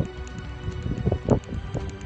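Wind buffeting the microphone in irregular low thumps and knocks, over a faint steady hum.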